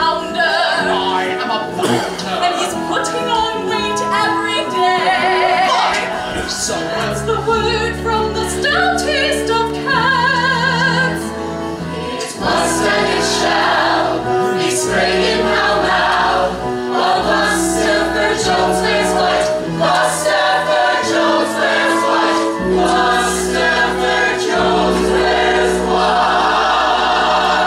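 Musical-theatre ensemble singing in chorus over instrumental accompaniment, with long held bass notes and wavering sung lines.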